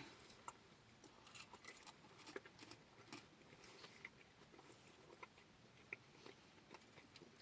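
Faint chewing of food, with scattered small soft clicks and smacks of the mouth.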